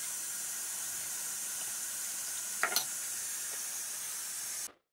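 Steady high background hiss, with one short clink of metal on glass about two and a half seconds in; the sound cuts off abruptly shortly before the end.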